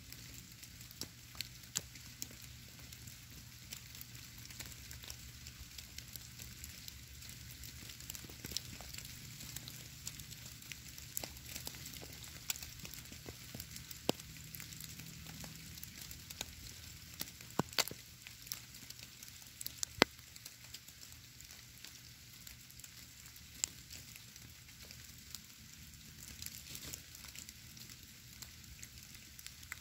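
Falling snow landing on a stone and the forest floor: a faint, steady crackle of many tiny irregular ticks, with a few sharper clicks, the loudest about two-thirds of the way through.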